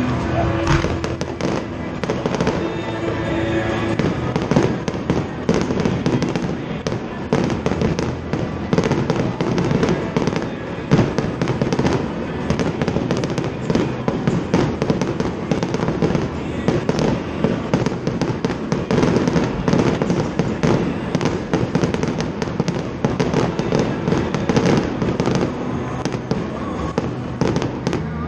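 Aerial fireworks bursting in a dense, continuous barrage: a rapid run of bangs and crackles, several every second, with no let-up.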